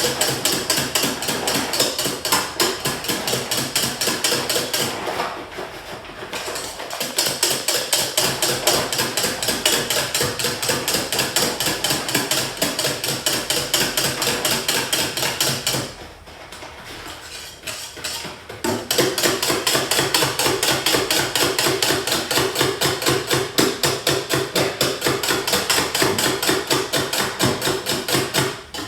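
Cake batter being beaten by hand in a bowl: a whisk or spoon knocks against the bowl in a fast, even rhythm of about four to five strokes a second. It stops briefly twice.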